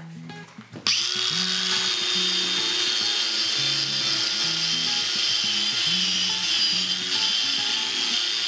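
Stark CAG 1800 cordless angle grinder fitted with a small wire brush. It starts abruptly about a second in, then runs steadily with a high-pitched whir and scrubbing as the brush strips rust off a steel angle.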